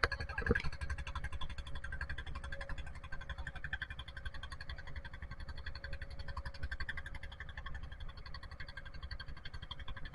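Fishing boat's diesel engine running steadily under way, a rapid, even low chugging with a steady hum above it. There is a single sharp knock about half a second in.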